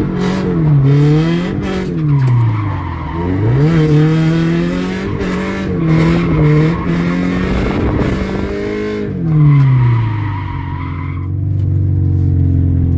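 Subaru BRZ engine revving up and down repeatedly while the tyres skid, then dropping to a lower steady pitch near the end before cutting off abruptly.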